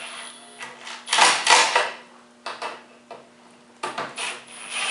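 Pneumatic impact gun run in short, gentle bursts to snug down screws: one longer burst of nearly a second about a second in, then a few brief taps.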